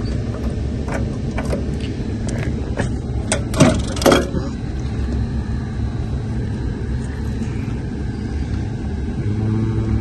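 Steady low rumble and hum of running rooftop air-conditioning machinery. A few sharp clicks stand out about three and a half to four seconds in.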